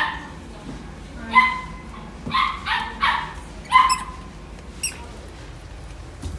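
Pomsky puppy barking in short, high-pitched yaps, about six of them in the first four seconds, while playing.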